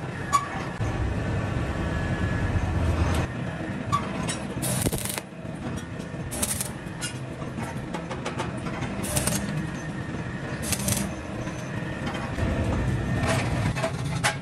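Stick (arc) welder tack-welding a steel plate onto a compressor tank: several short bursts of crackling from the arc, each under a second, over a steady low hum.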